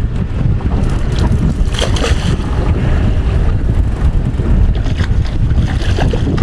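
Wind rumbling on the microphone over sea water sloshing against a small boat's hull, with a few brief sharper noises about two seconds in and again around five seconds.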